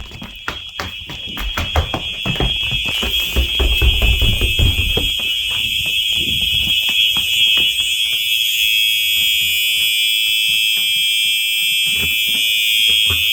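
Simplex 4903 horn strobe's horn sounding a steady continuous tone, uncoded because no fire alarm panel drives it. Over the first half, running footsteps and camera-handling knocks and thumps sound under it.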